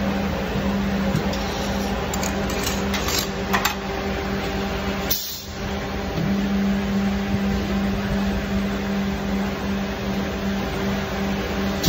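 Backflow incense cone making machine running: a steady hum with a few light clicks, and a short hiss of compressed air about five seconds in from its pneumatic cylinders.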